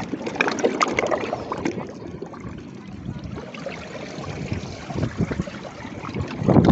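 Seawater trickling and splashing among reef rocks as the tide comes in, with a patter of small splashes in the first two seconds and the water growing louder near the end.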